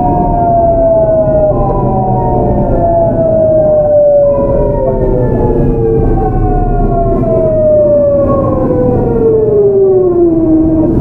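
GEC Alsthom GTO-VVVF inverter whine of a Seoul Metro 8000 series train, heard on board over the wheel and running rumble. It is falling in pitch as the train brakes, jumps back up about four seconds in and falls again, then levels off low near the end.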